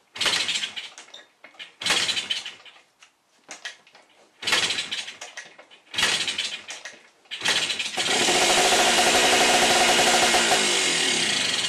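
Kawasaki F7 175cc two-stroke dirtbike being kick-started: about five kicks, the last of which catches at around eight seconds. The engine then runs for a few seconds before its revs fall away near the end as it dies, a stall the owner puts down to some electrical problem.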